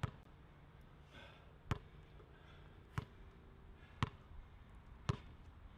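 Basketball dribbled slowly on a hard outdoor court: five sharp bounces, about one a second.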